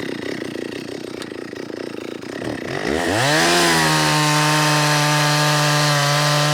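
Two-stroke chainsaw idling with an uneven rumble, then revved hard about three seconds in. It holds a steady, loud high-revving note as it cuts into a felled Cook pine log, the pitch settling slightly lower under load.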